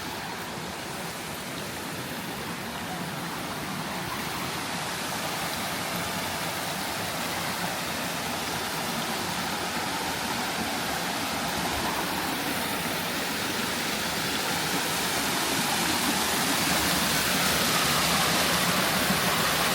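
Waterfall rushing: a steady hiss of falling water that grows gradually louder.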